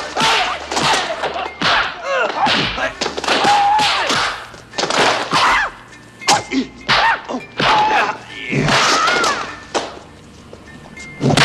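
Kung-fu film fight sound effects: a rapid string of punch and kick impacts, mixed with short high-pitched shouts and grunts from the fighters.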